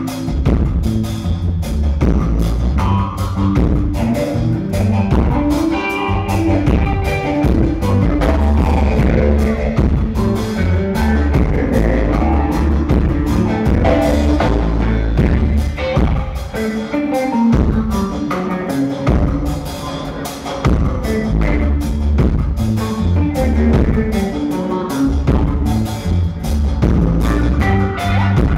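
Live instrumental dub reggae band playing: a heavy bass guitar line and a drum kit under electric guitar and keyboards.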